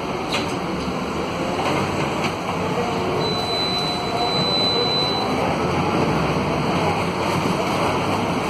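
Cabin noise inside a Scania K280 city bus on the move: its rear-mounted Scania DC09 five-cylinder diesel running under road noise, growing slightly louder partway through. A thin high whine sounds for about two seconds near the middle, with a few faint clicks.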